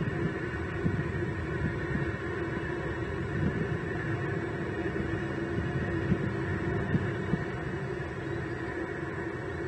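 Steady hum over an uneven low rumble, with a few faint knocks about a second in and around six to seven seconds in.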